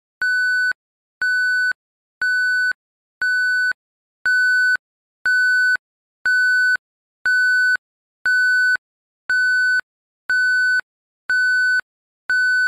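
Electronic countdown-timer beeps: a steady high beep of about half a second, repeated once every second at the same pitch, timing the answer period.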